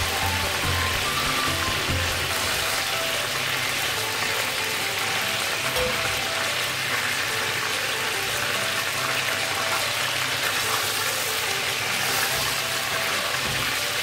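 Pieces of grouper sizzling steadily as they fry in hot oil in a pan, with background music playing over it.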